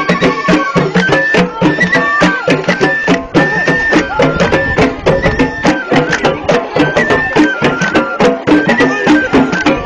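Ahwash, Amazigh folk music sung by a group of voices in unison, stepping between held notes over a fast, steady beat of handclaps and drums, about four to five strokes a second.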